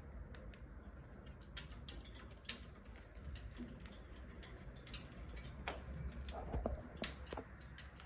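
Cockatiels pecking at a millet spray and moving about on a wire cage top: irregular small clicks and ticks, several a second, over a faint low hum.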